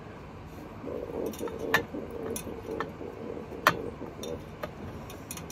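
Small puja vessels clinking several times as the Laddu Gopal idol is given its pure-water bath, with two sharper clinks about two seconds apart over a faint low murmur.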